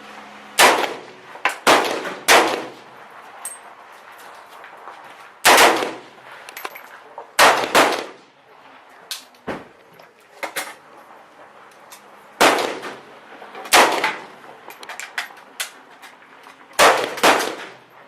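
Gunshots: about eight loud, close single shots at irregular intervals, two of them in quick succession, with fainter shots between them.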